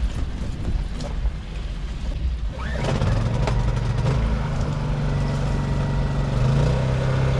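Rainman watermaker's electric pressure pump starting up about three seconds in and running steadily over a low hum, with its pitch stepping up slightly near the end. A few knocks of handling come before it starts.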